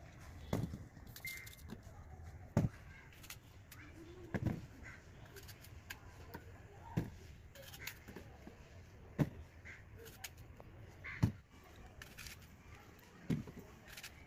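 Knife cutting through fresh apples held over a metal bowl: a short, sharp cut about every two seconds, seven in all.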